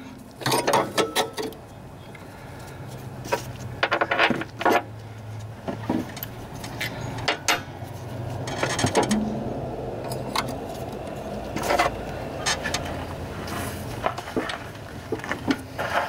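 Scattered metal clinks and knocks, some in quick clusters, as a steel idler pulley, its bracket and bolt are handled and set in place on a riding mower's deck, over a faint steady low hum.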